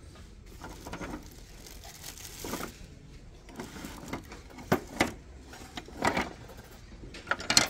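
Wooden spoons, a spatula and wooden boards knocking and clattering against each other and the metal shelf as they are moved about by hand: a handful of sharp knocks, the loudest near the end.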